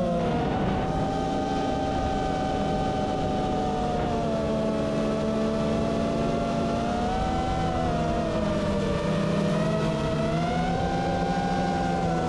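FPV racing drone's electric motors and propellers whining in flight. The pitch drifts down and up several times as the throttle changes.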